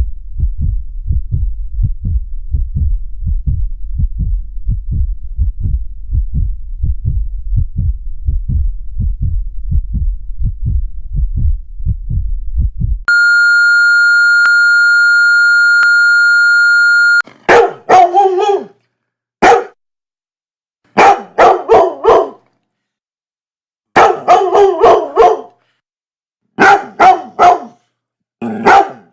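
A rapid heartbeat thumps steadily for about the first half. It cuts to a telephone's steady high beep for a few seconds, then a dog barks in short bursts of two or three barks, with pauses between.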